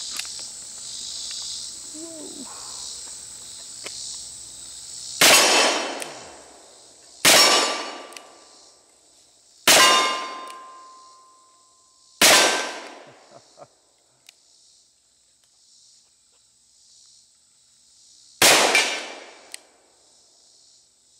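Five shots from a 1907 Colt New Service revolver firing .45 Colt cartridges, spaced about two seconds apart and then a longer pause before the last. A metallic ring follows some of the shots as steel targets are hit. A steady chorus of insects runs underneath.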